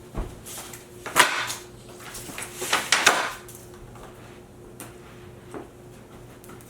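Cardboard packaging being handled and opened: scraping and knocking, loudest in a short burst about a second in and a longer rubbing spell around three seconds in.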